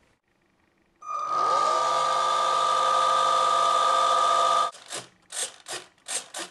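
Small electric motor of a remote-control model airboat spinning up its propeller with a briefly rising whine, running steady and high-pitched for about three and a half seconds, then cutting off suddenly. Then a string of short rasping whirrs as the rudder servos move.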